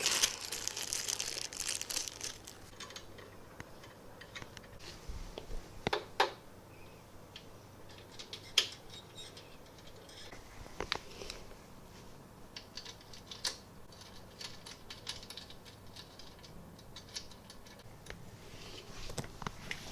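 Scattered small clicks, knocks and ticks of metal parts, screws and tools being handled while screwing a 3D printer's Z-axis frame together, with a short rustle at the start.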